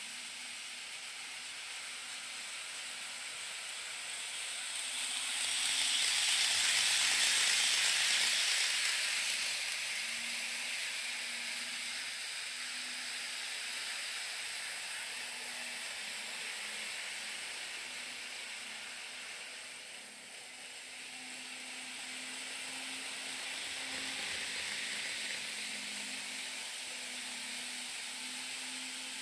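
Model train running on the layout's track: a steady rolling hiss that swells as it passes close about six to ten seconds in and again, more weakly, near twenty-five seconds, over a faint steady hum.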